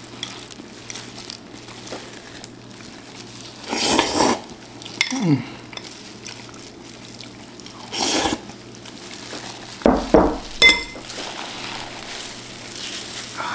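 Spoon scooping thick Cajun sauce from a bowl, with wet slopping and clinks against the container, in a few separate short bursts about 4, 8 and 10 seconds in.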